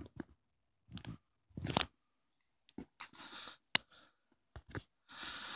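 Close handling noise: scattered light clicks and taps with a few short rustling bursts, as a pistol and the filming phone are held and turned in the hand.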